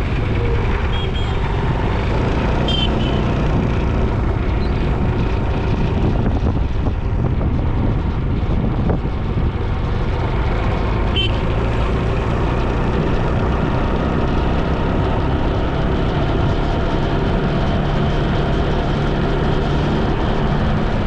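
Steady road noise from a moving motorbike: the engine running and wind rushing over the microphone. Two brief high chirps come about 3 and 11 seconds in.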